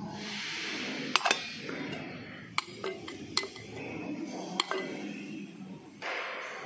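Metal food tins clinking against one another and the stainless steel table as they are handled: about five sharp clinks spread over a few seconds.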